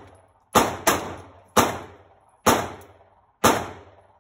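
Handgun fired at an indoor shooting range: five sharp shots, a quick pair about half a second in, then three single shots about a second apart, each trailing off in the range's echo.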